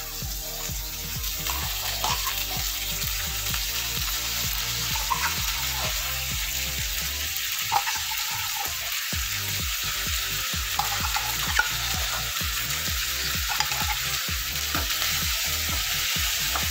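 Canned corned beef and diced potatoes sizzling in oil in a wok, a steady frying hiss. A wooden spatula stirs and breaks up the meat, scraping and knocking against the pan now and then.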